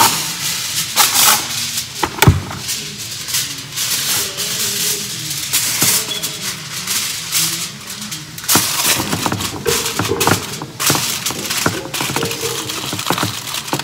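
Aluminium foil being pulled off the roll and torn, with a sharp snap about two seconds in, then crinkled and crackling as it is pressed down over the rim of a baking pan.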